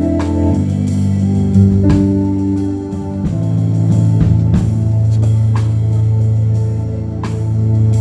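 Instrumental music: sustained organ-like chords that change every second or two, with guitar and light percussion keeping a beat.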